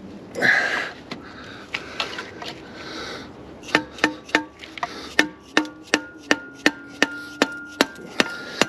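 A brief scrape, then repeated sharp hammer-like strikes on metal, about three a second, each one ringing. A part is being tapped down into place.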